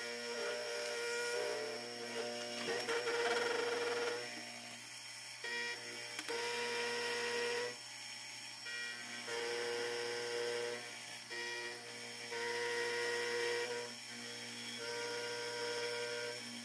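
Milling machine running with an end mill cutting the end of an aluminium block held in a vise: a steady high motor tone, with a cutting tone that breaks in and out every second or two as the cut goes on and off.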